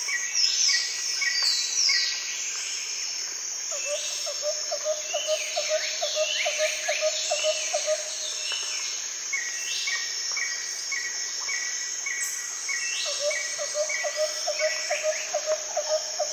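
Forest birds calling over a steady high insect drone: falling whistled notes and quick runs of short repeated notes. A lower, rapidly pulsing bird call comes in about four seconds in, stops around eight seconds, and returns near the end.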